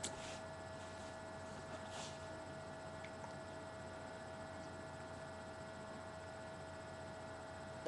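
Quiet room tone: a steady electrical hum with a faint whine held on one pitch, and a couple of soft, brief noises about two seconds apart.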